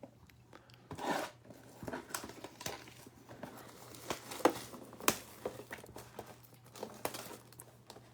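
Plastic wrapping being torn and crinkled as a sealed trading-card box is opened, in short irregular bursts with a few sharper clicks.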